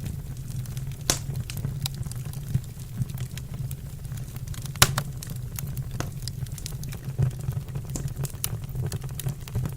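Wood fire crackling in a fireplace: irregular snaps and pops over a steady low rumble, with one sharper pop about five seconds in.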